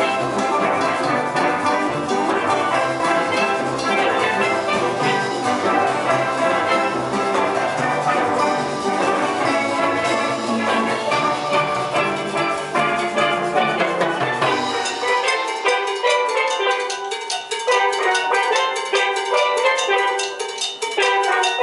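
Steel pan band playing: many pans struck with mallets. The bass pans drop out about two-thirds of the way through, leaving the higher pans playing on their own.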